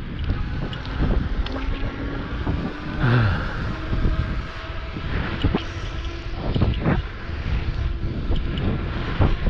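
Wind buffeting the microphone of a moving e-bike, a heavy low rumble with frequent short knocks and rattles from the bike over the road, and a faint steady hum beneath.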